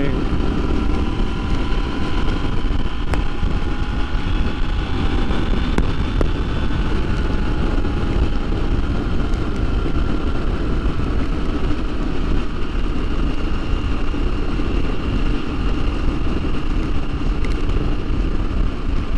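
Motorcycle cruising at a steady speed: a constant rush of wind and road noise over a faint engine drone that eases slightly lower in pitch.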